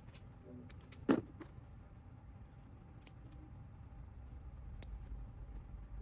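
Small handling sounds of electrical wires and a hand tool being worked: one sharp click about a second in and a couple of fainter clicks later, as the wire ends are stripped and clamped into a lever-type wire connector, over a low steady background hum.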